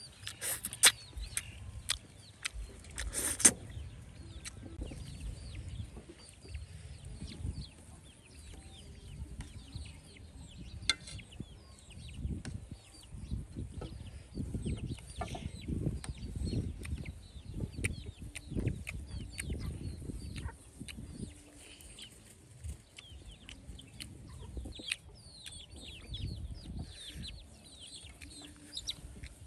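Chickens clucking, with many short calls throughout. Two sharp clicks sound in the first few seconds.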